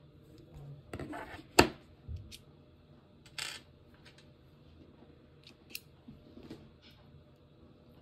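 A few scattered clicks and short rustles, as of small objects being handled, the loudest a sharp click about one and a half seconds in.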